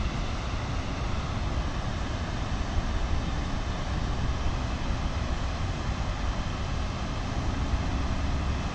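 Steady rush of river water pouring over a low dam, with a fluttering low rumble of wind on the microphone.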